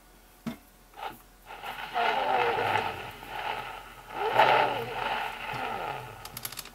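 Cylinder phonograph sounding through its horn: a few sharp clicks, then a loud, scratchy passage with swooping pitch, ending in a quick run of clicks.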